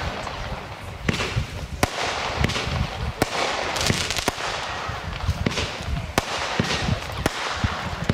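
Weco 'Twilight Zone' firework battery firing: shots launch and burst in an irregular run of about a dozen sharp bangs, roughly one every half second to second, over a continuous hiss.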